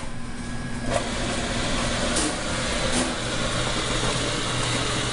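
Food processor motor running steadily, puréeing roasted butternut squash with condensed milk; it gets fuller about a second in.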